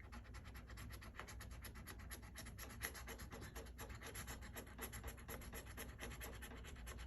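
Scratch-off coating being scraped from an instant lottery ticket. It comes as quick, faint, repeated strokes, several a second, without a break.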